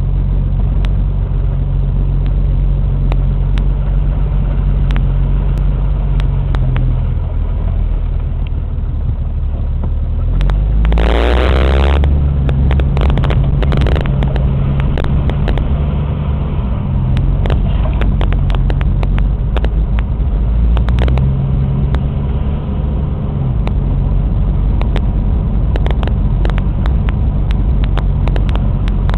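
1992 Jeep Cherokee driving, heard from inside the cab: a steady engine hum with road noise, the engine pitch shifting a few times as it changes speed. Scattered clicks and rattles run through it, and a short loud rush of noise comes about eleven seconds in.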